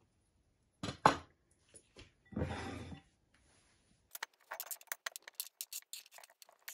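A knock and a short scrape as chopped avocado and cucumber are slid off a plastic cutting board into a bowl. Then, from about four seconds in, a quick run of light taps from a kitchen knife chopping avocado on the plastic board.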